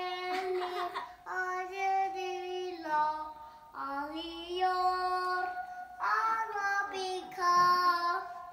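A young boy singing a song, in about four phrases of long held notes with short breaks between them.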